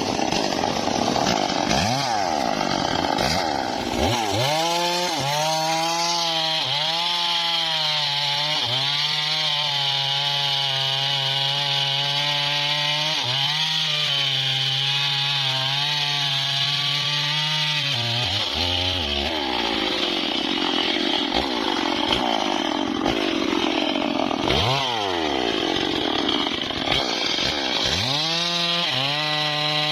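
Homemade bandsaw sawmill cutting a teak log: its motor speeds up about four seconds in and the blade cuts with a steady high hiss. The motor slows about two-thirds of the way through and picks up again near the end.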